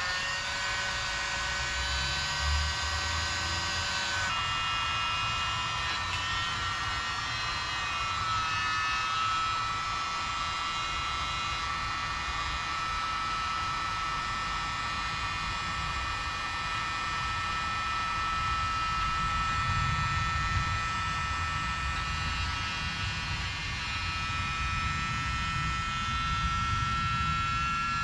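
Battery-powered Coleman air mattress inflator running steadily as it fills a twin air bed, a high motor whine with a slight drop in pitch about four seconds in. The owner thinks he damaged the pump by knocking it around and that it is not doing too well.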